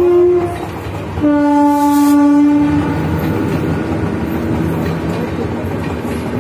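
WAP-4 electric locomotive's horn: a long blast that ends about half a second in, then a second, lower-pitched blast of about a second and a half. The locomotive and the Kutch Express coaches then pass over the crossing with a steady rumble and clickety-clack of wheels on rail joints.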